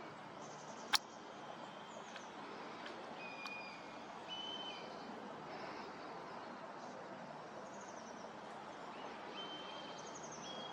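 Steady wind noise with small birds calling: short high whistles and chirps come and go throughout. One sharp click sounds about a second in.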